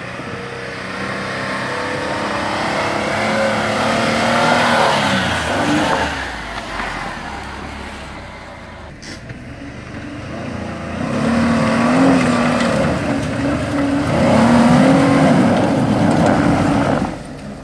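Jeep Wrangler engines revving hard under load on a steep dirt hill climb, in two long surges. Near the end the revs drop suddenly as the transmission shifts up a gear and the climb loses momentum.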